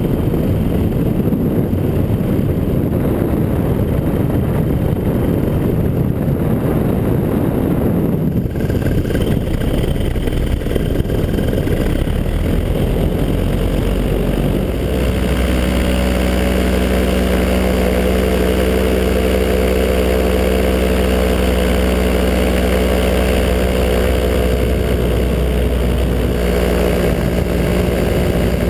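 Paramotor engine running in flight, loud and steady under a rushing, wind-like noise. About halfway through the rushing drops away and the engine settles into an even, unchanging drone.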